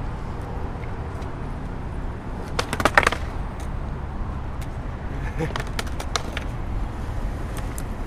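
Skateboard wheels rolling on concrete with a steady low rumble, then a quick cluster of sharp clacks about three seconds in as the board is popped for a flip trick and slaps back down. A few lighter single clacks and clicks follow near the end.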